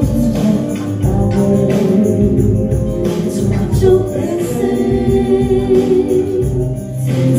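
A woman singing into a handheld microphone over a karaoke backing track with a steady beat.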